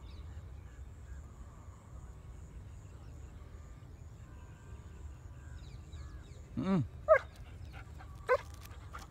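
Young German shepherd barking at a waved stick: three short, loud barks in quick succession about two-thirds of the way through, after several seconds of quiet.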